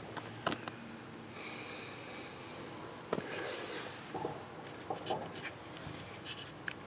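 Quiet background: faint rustling with scattered short clicks and a few brief faint chirps, no siren.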